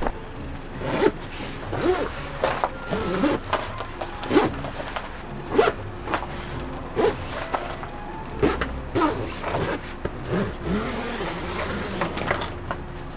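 A run of short rasping and scraping handling sounds, about one a second and uneven in spacing, over quiet background music.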